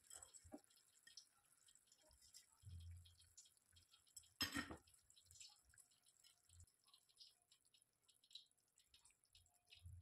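Near silence: quiet room tone with faint scattered ticks. There is one louder click about four and a half seconds in.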